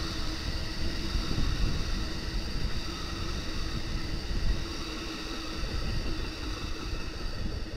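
Amtrak double-deck passenger cars rolling past at speed: a steady rumble of wheels on rail with a rushing noise, easing off a little near the end as the tail of the train goes by.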